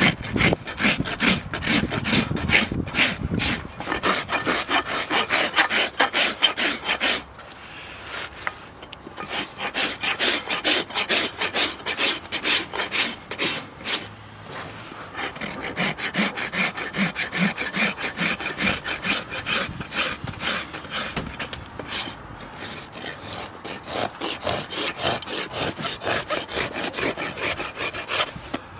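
Farrier's rasp filing a horse's hoof in quick repeated scraping strokes, pausing briefly a couple of times.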